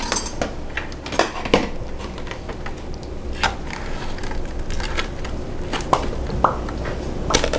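Metal spatula scraping and clinking against a metal baking pan as baked pears are lifted out and served onto plates: scattered separate clinks and short scrapes, a second or more apart.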